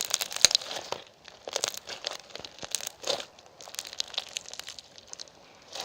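Irregular crinkling and crackling in short bursts, with brief pauses between them.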